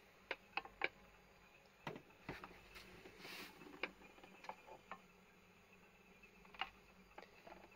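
Faint, scattered plastic clicks and taps from handling the dust container and casing of an Electrolux Supercyclone vacuum cleaner, with a short rub about halfway through; the vacuum is not running.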